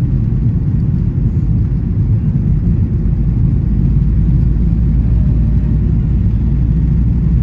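Cabin noise of a Boeing 737-800 rolling on the ground, heard from a seat over the wing: a steady low rumble of its CFM56 engines and wheels on the pavement.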